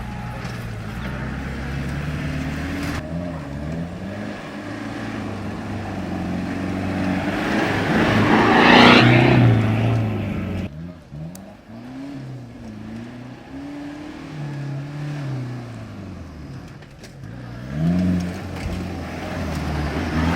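Off-road 4x4 engine revving up and down repeatedly as it works over an obstacle track, with its loudest, hardest rev and a rush of noise about nine seconds in.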